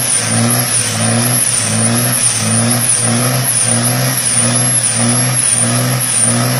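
Scania 113 truck's diesel engine running in an even pulsing rhythm, about two pulses a second, with a high whistle rising and falling in step.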